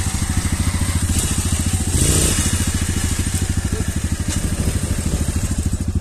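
Small motorcycle engine idling close by with a rapid, even pulse. A faint rise in pitch about two seconds in as another motorcycle revs and rides off.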